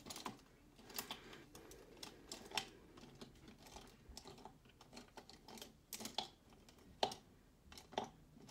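Faint, irregular light clicks and taps, one or two a second, from makeup tools being handled: a flat brush and glitter container being picked up and tapped.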